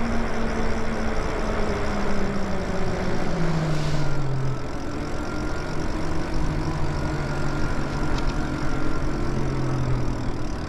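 Electric bike riding on pavement: wind rumble on the microphone and tyre noise, with the motor's low hum shifting down in pitch about four seconds in and then holding steady.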